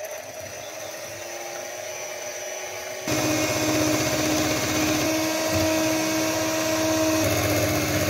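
Electric hand mixer running with its beaters in a bowl of eggs and sugar, whipping them until they double in volume. A steady motor whine that gets louder about three seconds in.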